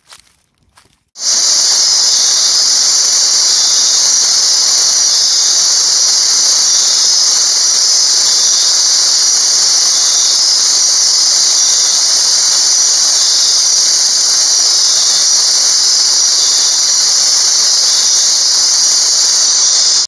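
Loud, steady, high-pitched buzzing drone of a dense night insect chorus. It starts abruptly about a second in, with a fainter, higher chirp repeating roughly once a second.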